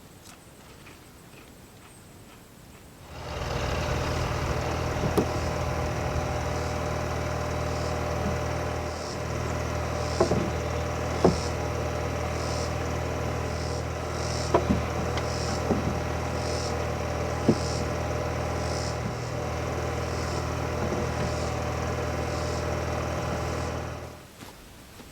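A motor-driven machine runs steadily for about twenty seconds with a low hum, starting about three seconds in and cutting off near the end. A few sharp clicks and a faint high pulse about once a second sit on top of it.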